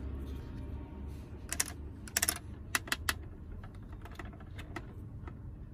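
Sharp clicks and taps of hard plastic as a pink toy drink vending machine is handled at its coin slot, scattered irregularly and bunched about one and a half to three seconds in.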